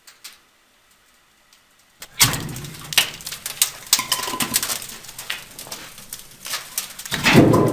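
Firewood being loaded into the open steel firebox of a 200 kW wood-fired water boiler: logs knock and clatter irregularly against the metal, starting about two seconds in and loudest near the end.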